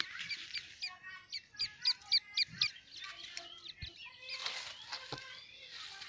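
Grey francolin chick peeping: a quick run of high, arching cheeps, about four a second, for the first three seconds, then softer chirping.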